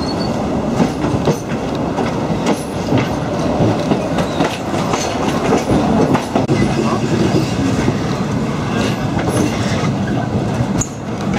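Wooden railway carriages of the Palma–Sóller train rolling along, heard from on board: a steady rumble and rattle with wheels clacking over the rail joints.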